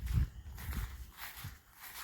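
Footsteps of a person walking across rain-soaked, muddy ground: three heavy steps.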